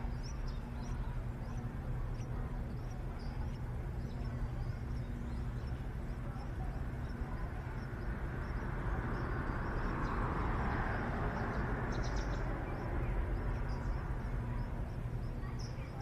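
Faint, short high chirps of small birds over a steady low hum, with a rushing noise that swells up and fades away in the middle.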